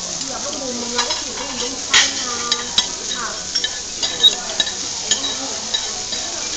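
Rice, vegetables and steak sizzling on a hot iron plate in a steady hiss, while a knife and fork stir the rice and vegetables, the metal cutlery scraping and clinking against the plate several times.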